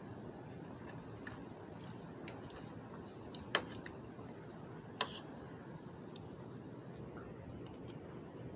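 A metal fork clinking against the plate a few times as noodles are twirled and picked up, with two sharp clinks about a second and a half apart near the middle the loudest, over a steady low hiss.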